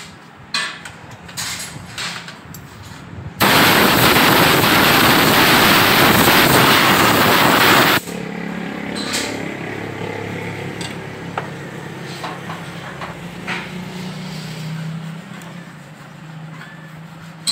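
Compressed-air blow gun blasting into a motorcycle carburettor to blow the dirt out of it: one loud hiss of about four and a half seconds that starts and stops abruptly. Before and after it come light clicks of tools on the carburettor body, over a low steady hum.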